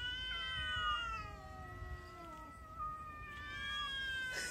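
Two cats squaring off for a fight, yowling: long, drawn-out wavering yowls that die down about halfway through and swell again near the end.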